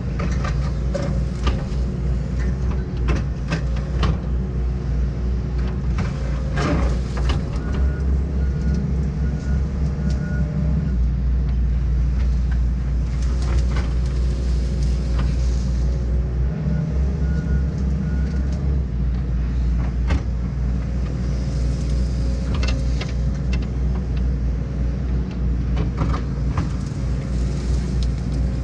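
John Deere 135G excavator's diesel engine running steadily under working load, with a whine that comes and goes and scattered sharp cracks and knocks as the bucket strips out brush and small trees.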